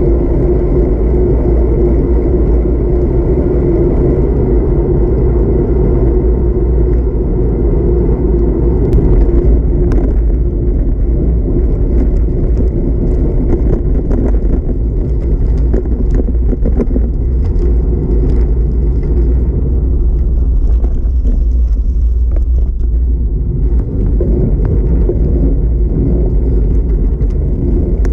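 Steady, loud low rumble of wind buffeting a bike-mounted camera's microphone, mixed with tyre and road noise from a road bike rolling at speed. A few short knocks come in the middle, from bumps in the road surface.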